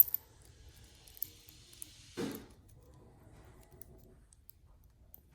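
A few faint clicks of small RC axle parts being handled as the portal axle shaft is fitted back together, with one short dull knock about two seconds in.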